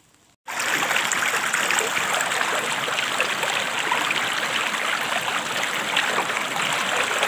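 Water of a small stream rushing and splashing past close to the microphone, starting abruptly about half a second in and then running steadily.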